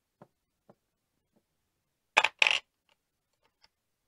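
Casino chips set down on a felt craps layout with a few faint ticks, then two loud, sharp clacks of chips knocking together about two seconds in.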